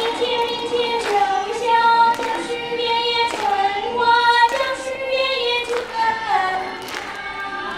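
A young girl singing a slow melody through a microphone, holding long notes of about a second each.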